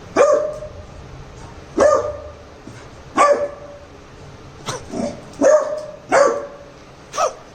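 Labrador puppy barking repeatedly, about eight short barks roughly a second apart, two of them softer.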